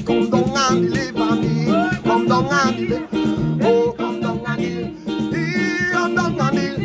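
A man singing a Caribbean gospel song with wavering, ornamented vocal runs over electronic keyboard accompaniment.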